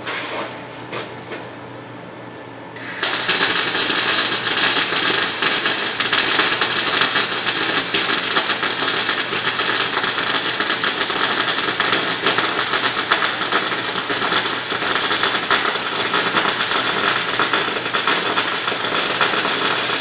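MIG welder arc crackling and sizzling steadily as a bead is laid on a steel exhaust pipe joint. It starts suddenly about three seconds in and carries on without a break.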